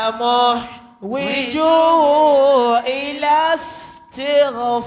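A man chanting verse in a sung style through a microphone, holding long notes with a wavering, ornamented pitch. He pauses briefly about a second in and again near the end.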